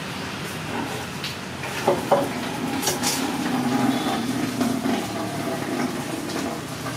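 A motor engine running steadily, swelling for a few seconds in the middle, with a few sharp clicks about two and three seconds in.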